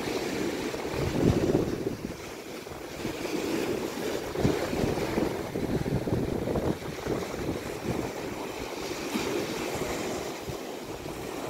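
Surf washing and breaking on a rocky shore in repeated swells, with wind buffeting the microphone.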